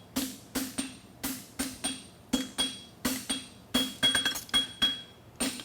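Farrier's hammer striking hot steel bar stock on an anvil, about three blows a second with the anvil ringing between them, as he forges a bump into the toe of a bar shoe.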